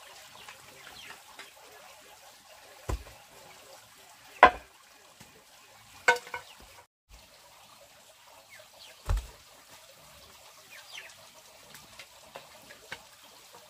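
Several separate knocks and thuds, the loudest about four and a half seconds in, with a few lighter ticks near the end, over a faint steady hiss.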